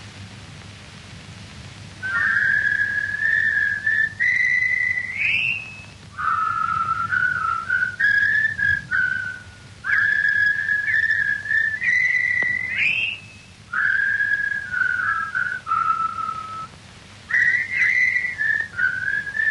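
Someone whistling a simple tune in short phrases of a second or two, with brief pauses between them, over a faint steady low hum.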